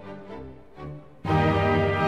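Instrumental background music: a soft melodic passage that becomes suddenly much fuller and louder about a second in.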